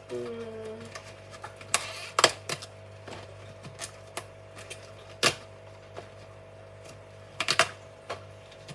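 Outer leaves of a sugarloaf cabbage being snapped and torn off by hand: a run of sharp, crisp snaps at irregular intervals. The loudest come about two seconds in, with another cluster near the end.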